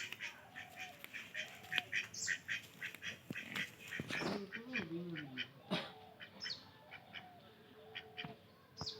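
Farm animals calling: a run of short, rapid calls, a longer wavering call about four seconds in, and a few high bird chirps.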